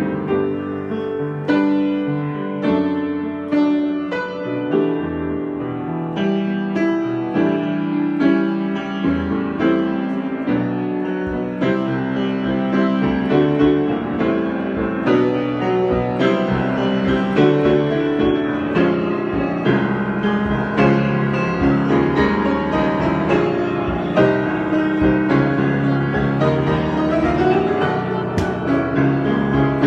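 Solo piano improvisation: chords and melody played without a break, with many struck notes ringing over one another.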